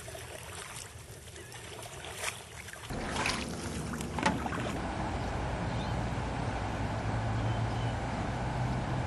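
Canoe paddling on open water: faint paddle strokes and drips. About three seconds in, the sound switches abruptly to a louder, steady rush of wind and water noise with a low hum underneath.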